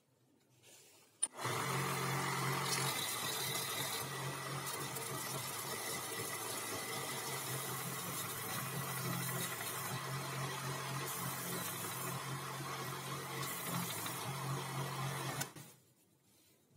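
Homemade belt sander starting with a click about a second in and running steadily while a small plywood block is pressed against the sanding belt, then stopping about a second before the end.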